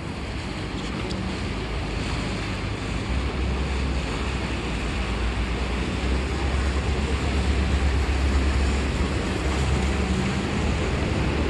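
Wind buffeting the microphone, a low fluttering rumble that grows stronger about three seconds in, over a steady rushing wash of outdoor noise above the canal.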